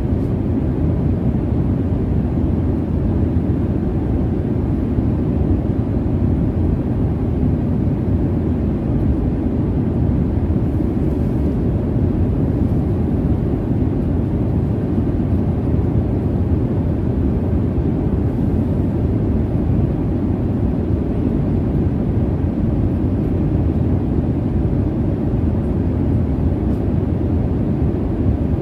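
Airliner cabin noise from the jet engines and airflow: a steady, even low rumble with a softer hiss above it.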